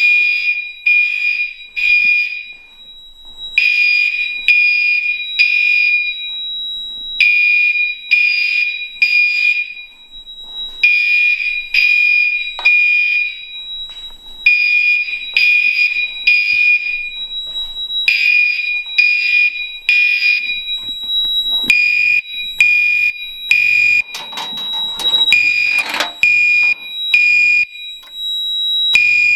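Three Gentex Commander 4 fire alarm horns sounding in a temporal code-3 pattern: three short blasts, a pause, repeating about every three and a half seconds. Two horns are set to a steady 2400 Hz tone and one to its mechanical tone.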